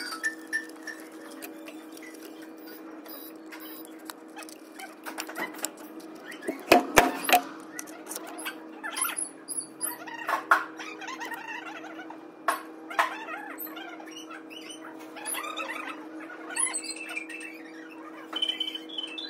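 Enamelled copper magnet wire being handled and pressed into the slots of a three-phase motor stator during rewinding: scattered light clicks and scrapes, with a cluster of sharp clicks about seven seconds in, over a steady hum.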